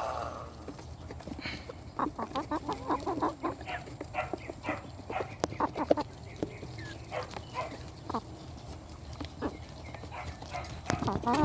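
Chickens clucking: a string of short, quick calls, busiest in the first half, with a longer call starting near the end.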